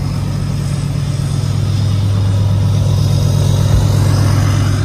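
An engine idling steadily, a loud low even drone, with one brief knock about four seconds in.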